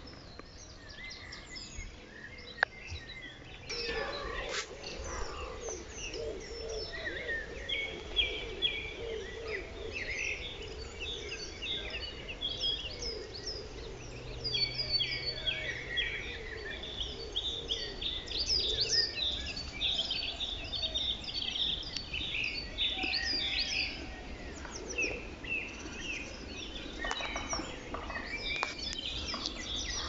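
Woodland birdsong led by a song thrush singing continuously, repeating each short whistled phrase two or three times, with other small birds singing alongside. The song grows fuller about four seconds in.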